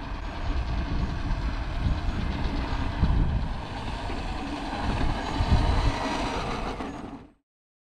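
Electric RC model plane (3D-printed Super Chipmunk) taxiing on an asphalt runway: a steady low rumble with a faint motor whine that rises briefly about five seconds in. The sound cuts off suddenly near the end.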